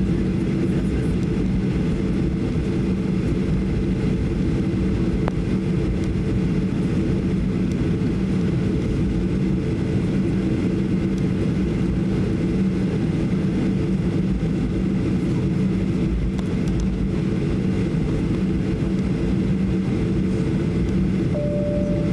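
Steady cabin noise of a Boeing 737-800 taxiing, heard from inside the passenger cabin: its CFM56-7B engines run at low taxi thrust, giving an even low hum. Near the end, a few short tones step down in pitch.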